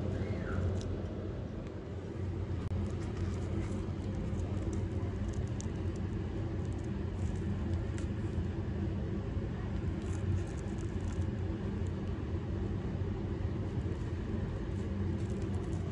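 A steady low rumble that holds evenly throughout.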